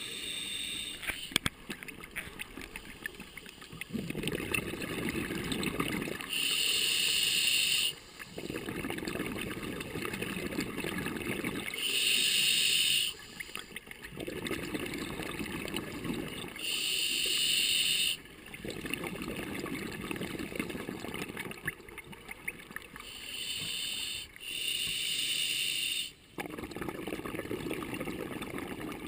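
A scuba diver breathing through an open-circuit regulator underwater: a hissing inhale through the demand valve about every five seconds, each followed by a few seconds of bubbling exhaust. Near the end two inhales come close together.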